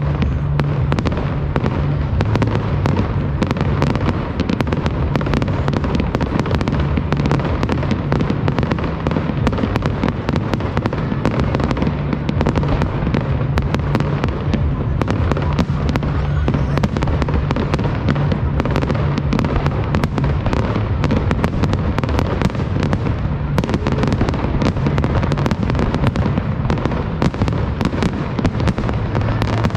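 Fireworks display going off in a dense, continuous barrage: many bangs and crackles a second, with a steady low rumble underneath.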